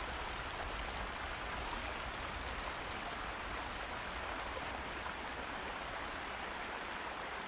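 Steady hiss of water spraying, as from a fire hose, with a few faint ticks in the first few seconds.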